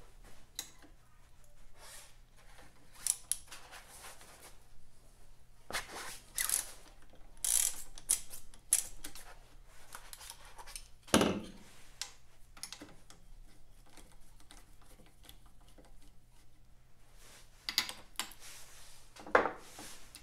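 Spanner and ratchet undoing a 3/16 Whitworth nut and bolt on a Norton Atlas crankcase: scattered ratchet clicks, scrapes and metal clinks of the tools, with sharper knocks about eleven seconds in and near the end.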